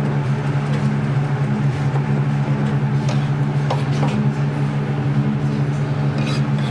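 Steady electric motor hum, with a few faint clicks of the spatula against the steel bowl in the middle.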